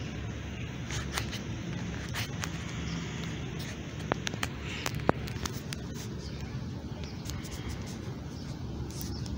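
Handling noise from a phone's microphone rubbing and brushing against skin and clothing, over a steady low rumble, with scattered clicks; the sharpest click comes about five seconds in.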